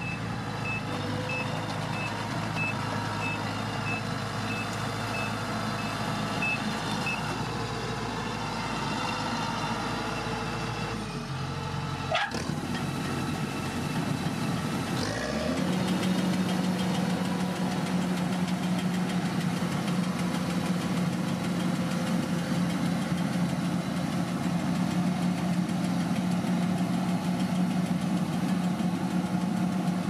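Kubota DC-108X combine harvester running steadily as it cuts rice: a constant engine and machinery drone. A faint high beep repeats evenly for the first several seconds, and after a click partway through the drone changes to a stronger, steadier, higher hum.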